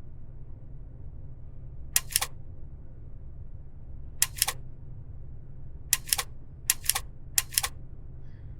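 A button clicking: five double clicks, irregularly spaced, over a steady low hum.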